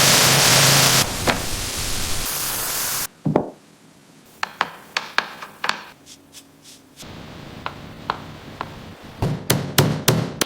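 Restoration shop work on a car body: a loud steady hiss of a power tool that cuts off suddenly about three seconds in, then a run of sharp hammer knocks, coming quickly near the end.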